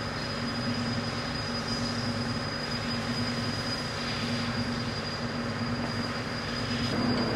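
Steady machine hum with a constant high-pitched whine running underneath.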